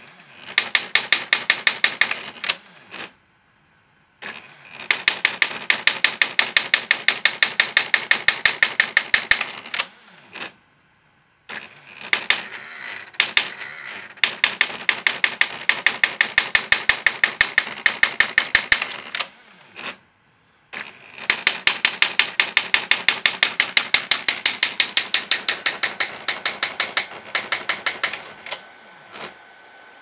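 Adler Gabriele 8008 electronic daisy-wheel typewriter printing by itself under Arduino control: rapid hammer strikes on the daisy wheel at about six a second, in runs of several seconds broken by short pauses, with the stepper motors shifting the carriage and wheel between strikes.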